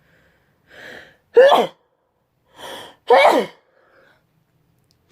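A woman sneezing twice, about a second and a half apart, each loud sneeze falling in pitch and preceded by a quick drawing in of breath: part of a sneeze attack.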